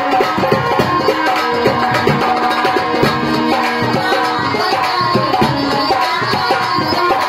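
Loud Indian folk-style dance music with a steady drum beat under sustained melodic notes.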